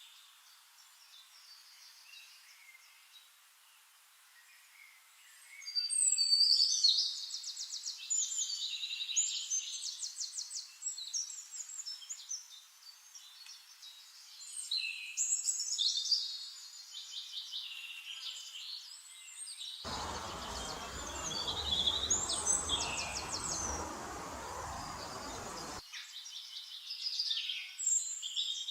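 Small songbirds singing: a series of high chirps and rapid trilled phrases with short pauses between them, starting after a few quiet seconds. About two-thirds of the way through, a rushing noise comes in for about six seconds, then stops suddenly.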